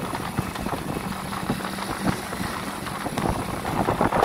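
Small motorbike engine running steadily at riding speed, with wind buffeting the microphone.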